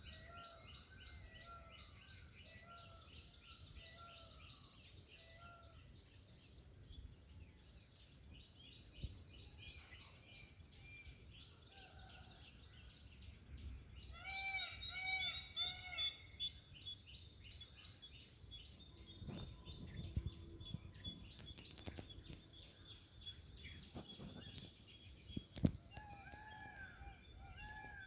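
Peafowl calling in bouts of short, repeated rising-and-falling notes, loudest in a quick bout about halfway through. Steady high chirping of insects and small birds runs underneath, and there is one sharp knock near the end.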